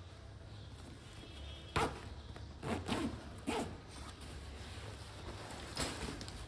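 Bag zipper being worked during a repair: a sharp click about two seconds in, then several short zip strokes, with one more near the end.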